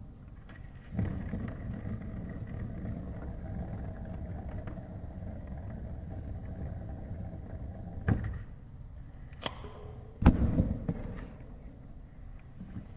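A fidget spinner with its bearing caps removed, spinning with a steady low whirring rumble that starts about a second in and stops with a knock about two-thirds of the way through. A louder knock follows a couple of seconds later.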